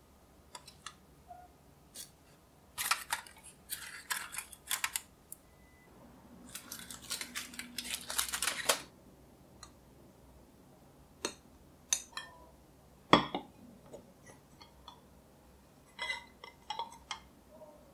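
Glass pudding cup and plate handled on a table: light taps and clinks, two spells of rustling, and one sharper knock about 13 seconds in.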